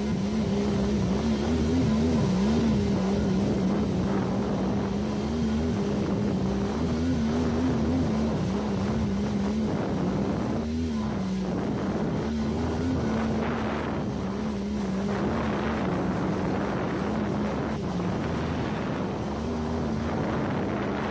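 Jet ski engine running under way at sea, its steady note wavering slightly up and down, with water spray rushing beneath the hull.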